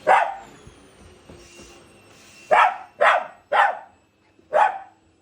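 A dog barking in short, sharp barks: a single bark, then three in quick succession about half a second apart, then one more.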